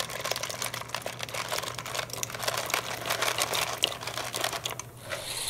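Dried trottole pasta pouring from a plastic container into a pot of boiling water: a dense rattle of many small hard pieces clattering, which thins out about five seconds in.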